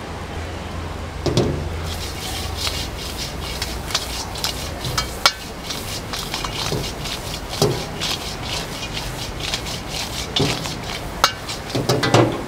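Metal ladle scraping and knocking against a steel wok during stir-frying, a quick run of scrapes and clicks with heavier clanks about a second in, about two-thirds of the way through and near the end, over a steady low hum of the gas burner.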